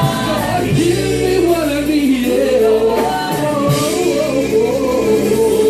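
Gospel singing with band accompaniment: sung runs that wind up and down, ending on a long held note in the last second or so, while the bass drops out a little over halfway through.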